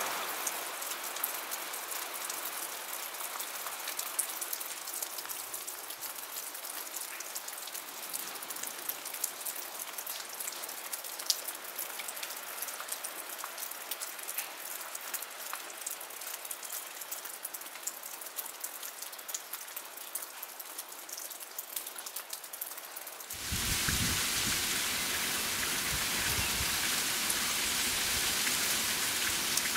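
Steady rain falling, a hiss full of fine raindrop patter. About 23 seconds in it switches abruptly to a louder, fuller rain sound with more low rumble.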